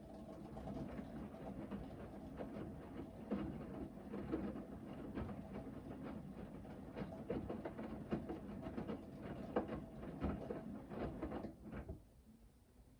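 Hoover VHD 9163 ZI front-loading washing machine in its main wash: the drum turns for about twelve seconds with the motor humming and wet laundry tumbling in irregular thuds and splashes, then stops about a second before the end.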